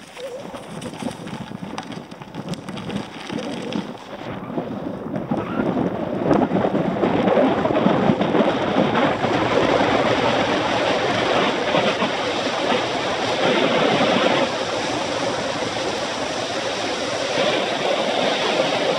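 Wind rushing over the microphone of a camera on a fast downhill ride, mixed with tyres rolling on the road surface. It grows louder about six seconds in as speed builds on the asphalt.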